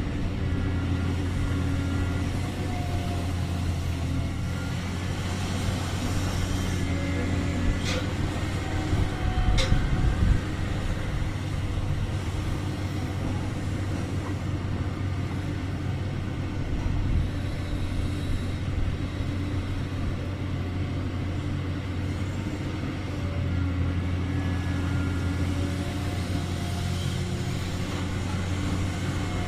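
Large diesel engine of a Liebherr 974 excavator running steadily, with two sharp clicks about eight and nine and a half seconds in.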